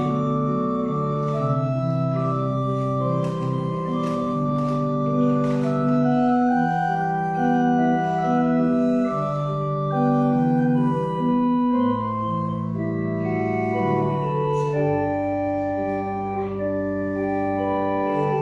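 Church organ playing slow, sustained chords over a moving bass line, the notes changing in steps every second or so. A few faint clicks sound under the music.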